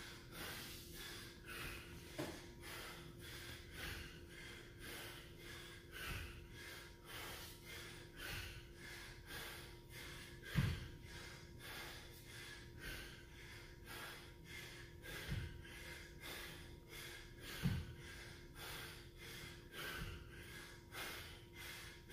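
A man panting hard from exertion, about two breaths a second, during dumbbell snatches. A few dull thumps stand out now and then, over a faint steady hum.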